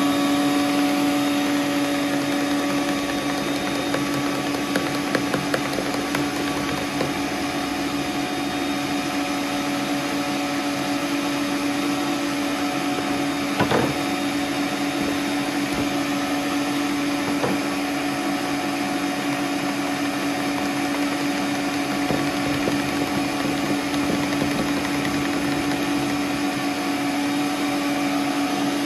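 Stand mixer motor running steadily, whipping eggs and sugar, with an even hum. There is a single sharp knock about halfway through.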